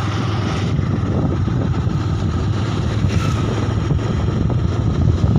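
Motorcycle running steadily while being ridden along a road, with the engine and wind buffeting the microphone.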